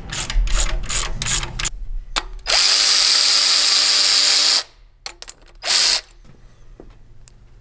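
A run of clicks in the first second and a half, then a cordless electric ratchet spins with a steady whine for about two seconds, followed by one short burst. It is backing off the bolt of a homemade valve-spring compressor on a V8 cylinder head to release the valve springs.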